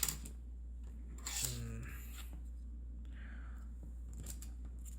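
Faint handling noise with a few light clicks, a short hesitant 'uh' from a man about a second in, over a steady low hum.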